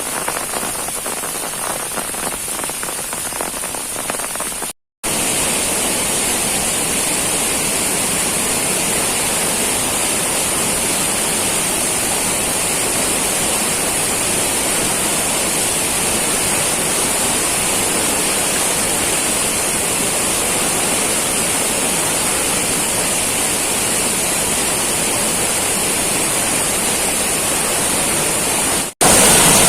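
Heavy rain falling, with the patter of separate drops audible in the first few seconds. After a brief dropout about five seconds in, it goes on as a denser, steady rush of rain.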